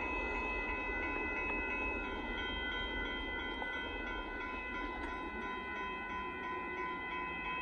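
Railroad grade-crossing warning bells ringing steadily over the low rumble of a train on the tracks.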